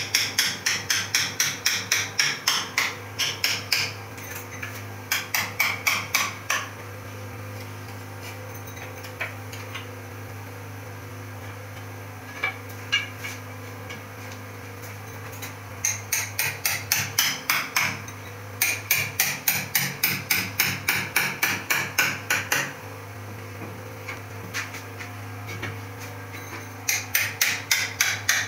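Hand hammer striking a steel chisel to chip away wall plaster, about five sharp metallic strikes a second in runs of a few seconds, broken by pauses with only the odd tap.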